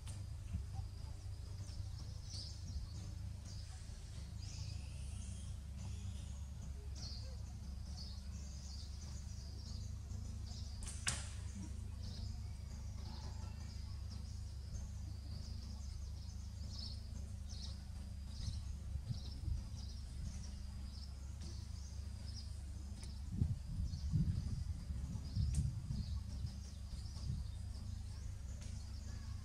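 Outdoor forest ambience: faint high chirps of small birds or insects come and go over a steady low rumble. A single sharp click sounds about 11 seconds in, and a few louder low bumps come near the end.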